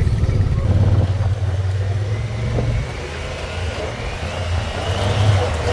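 ATV engine running under way, a steady low rumble, with a faint whine that rises in pitch over the second half as it speeds up.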